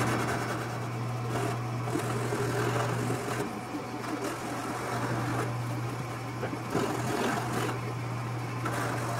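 Hand-sanding the edge of a thin aluminium tab to take off its sharp edge: rasping rubbing strokes broken by a few short pauses, over a steady low hum.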